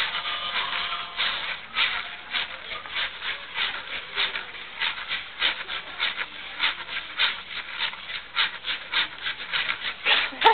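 Plastic hula hoop spinning around a person's waist, making a rhythmic rasping swish about three to four times a second, with one sharper, louder hit near the end.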